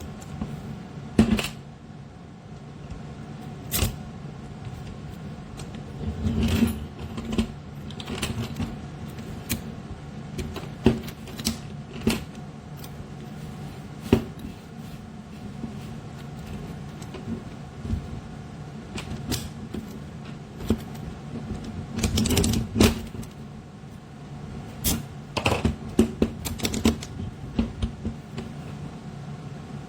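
Irregular clicks, clinks and knocks of small hard objects being handled, over a steady low hum, with busier clusters of clatter about six seconds in and again around twenty-two seconds.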